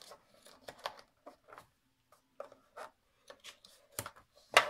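Paper and card being handled and folded by hand on a scoring board: soft, scattered rustles and light taps, with a louder sharp knock just at the end.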